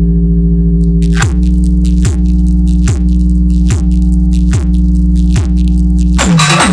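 Loud electronic music of steady synthetic tones over heavy bass, played through a DJ sound system: a falling bass glide with a sharp click comes about every 0.8 s, and a hissing noise burst breaks in near the end.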